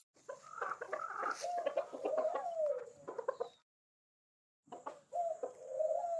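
Ring-necked pheasants clucking and calling while they feed, in two bouts of short chuckling notes and drawn-out, falling calls, broken by a second of silence about halfway.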